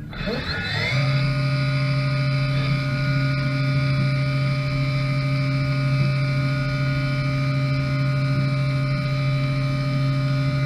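Haas VF2 CNC mill spindle spinning up, its whine rising in pitch over about the first second, then running at a steady speed with an even, unchanging whine.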